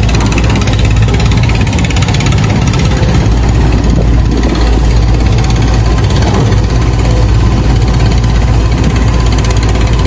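Heavy diesel engine running steadily, a loud, even low rumble with no clear revving.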